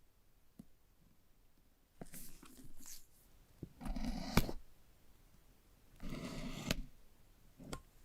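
Phone retail box and packaging being handled: three bursts of rustling and scraping, with a few sharp taps or clicks, the loudest about halfway through.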